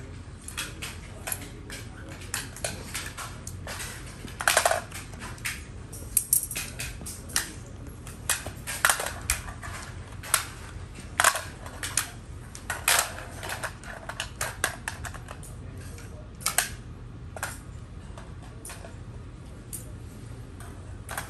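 Gunshots from rifles fired along a firing line: many irregular single shots at varying loudness, some overlapping, a dozen or so loud sharp cracks among fainter, more distant ones.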